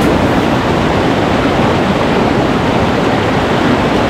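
Chatterbox Falls, a large waterfall, pouring steadily: a loud, even rush of falling water.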